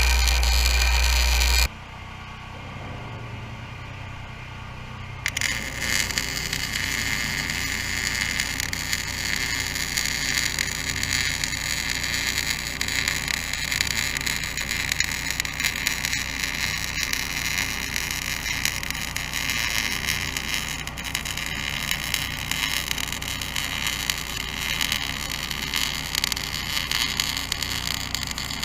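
MIG welder arc crackling and sizzling in a long continuous weld bead on 14-gauge steel C-purlin, starting about five seconds in. A portable generator runs underneath it.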